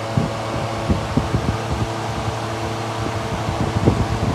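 Steady low mechanical hum with irregular low thumps and knocks through most of it, the loudest near the end.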